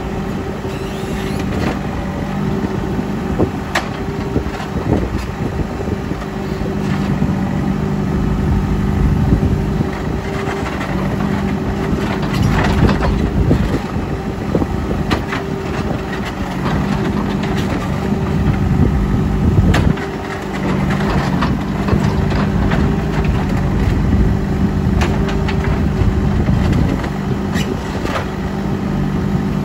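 JCB 3CX backhoe loader's diesel engine running under working load, its note sagging and recovering as the hydraulics take up load, with scattered metallic clanks and knocks from the machine working.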